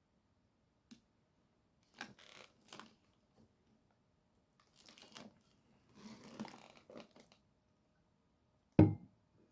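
Faint crinkling and rustling of food wrappers in several short bouts, then a single sharp thump near the end.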